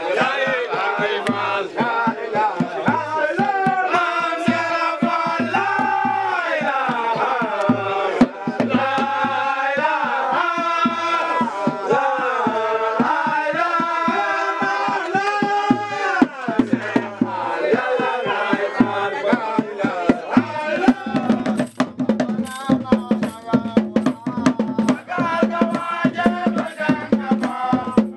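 Singing in a chanting style, with percussion underneath. About three-quarters of the way through, rapid hand-drum strokes come to the fore.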